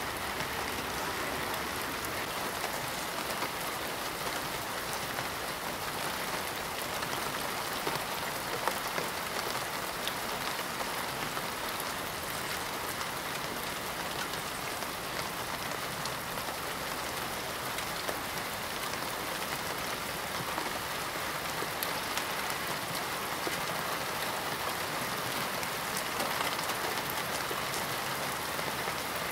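Steady rain falling on a parked car, with many small drop ticks over an even hiss.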